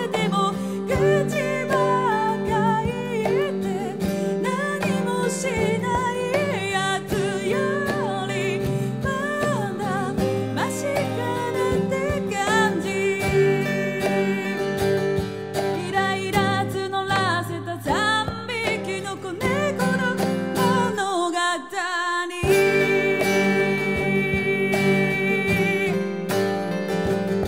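A woman singing a melody over live acoustic guitar accompaniment. There is a brief break in the low guitar chords about three quarters of the way through before they resume.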